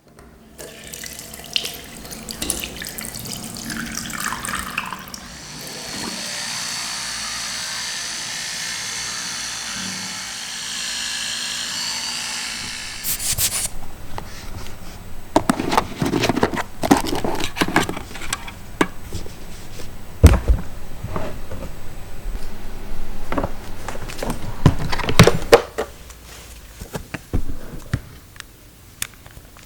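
Water running from a tap in a steady stream for several seconds. Before and after it come scattered clicks, then a long run of irregular knocks and clatters.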